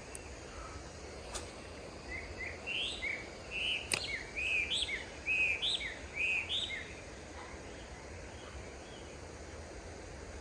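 A small bird singing a run of short, rising-and-falling chirps for a few seconds over steady outdoor background noise, with a couple of sharp clicks.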